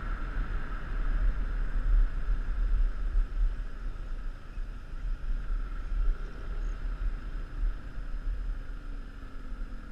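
Wind buffeting the microphone of a moving motorcycle, with the bike's engine running steadily underneath.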